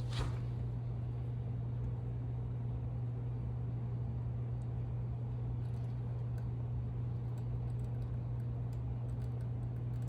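A steady low hum of a running machine, with faint handling noises over it and a sharp click right at the start.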